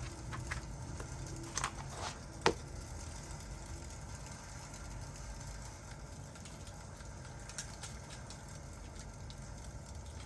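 Fireplace crackling: a steady low rumble with a few scattered sharp pops, the loudest about two and a half seconds in.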